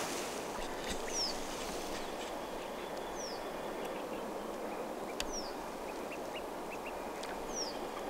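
Outdoor pond ambience: a small bird repeats a short, high, falling call about every two seconds over a steady background hiss.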